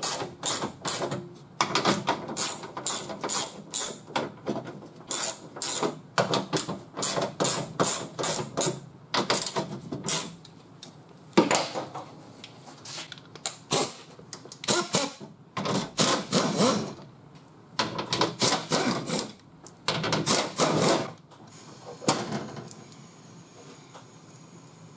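A handheld pneumatic tool runs in a dozen or so short, rapid-clicking bursts as it spins out the nuts and bolts holding a car door's window regulator, with one sharp knock about halfway through. The bursts stop a few seconds before the end.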